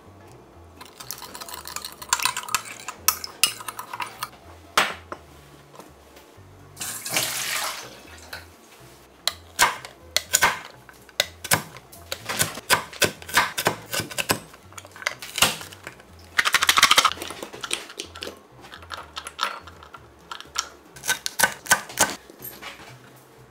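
Metal spoon stirring a sauce in a glass bowl, clinking against the glass in quick runs of rattling taps, with a few short pours of liquid into the bowl.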